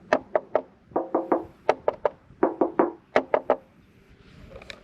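Knuckles rapping on the steel frame (tridion safety cell) of a Smart ForTwo electric drive, in about five quick groups of roughly four knocks, each knock giving a short ringing metallic note.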